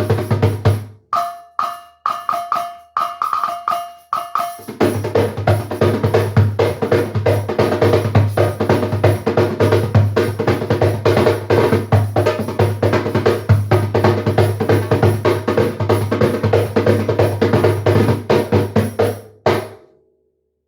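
Drum kit played hard along with a band track. About a second in, the bass drops out for a short break with a few held tones, then the full groove comes back. It all stops abruptly near the end.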